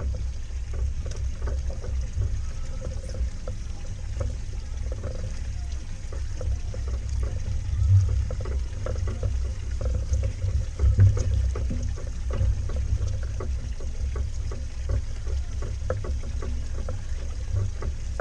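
Water lapping and sloshing against a boat's hull, with a steady low rumble and many small scattered knocks; it swells briefly about eight and eleven seconds in.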